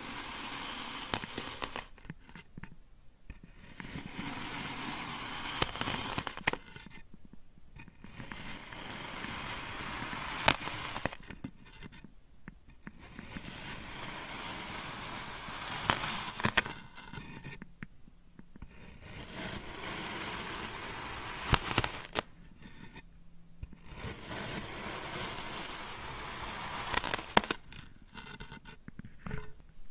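A knife slicing through blocks of kinetic sand: a gritty, hissing scrape with each pass. There are about six passes, each two to three seconds long with short pauses between, and several end in a sharp tap of the blade.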